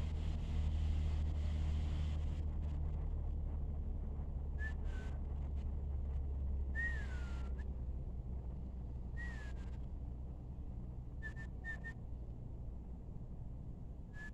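Songbirds calling: short whistled notes and a few downward-sliding whistles, spaced a few seconds apart, with a quick run of short notes near the end, over a steady low rumble and faint clicks.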